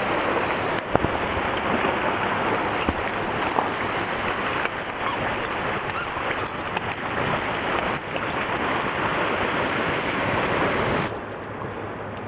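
Sea surf washing against shore rocks, with wind on the microphone and a few faint clicks. About a second before the end it drops to a quieter, steadier wash.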